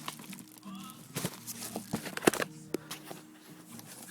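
Handling noise as a firework cake is picked up and moved: a few sharp knocks and some rustling over a faint steady hum.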